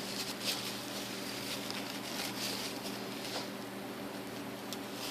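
Faint handling of small baitcaster reel parts: scratchy rubbing with a few light clicks, over a steady low hum.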